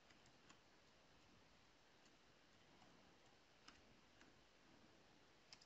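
Near silence, with a few faint computer keyboard clicks as a word is typed.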